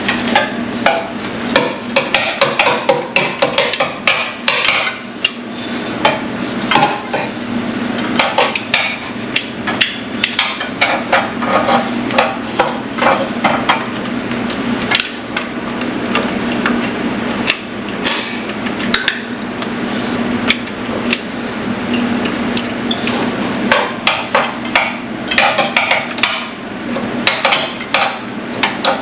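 Repeated metal-on-metal hammer blows, irregular and several a second in bursts, driving a wrench or bar to break loose a seized nut or bolt on a car engine, with a steady hum underneath.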